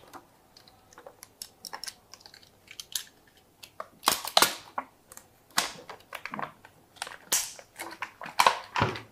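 Plastic heat-shrink film on a battery pack being cut with a snap-off utility knife and torn away by hand. Small scattered clicks and crinkles come first, then several louder rips, each a fraction of a second long, in the second half.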